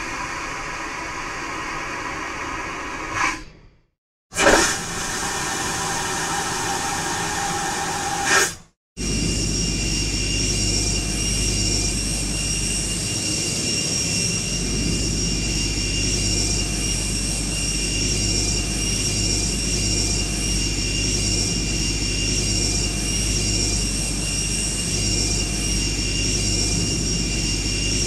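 Aircraft vacuum toilet flushing twice, each flush a loud rushing whoosh of about four seconds, with a short silence between. Then, after a brief gap about nine seconds in, aircraft jet turbines run steadily, with a low hum under a high, steady whine.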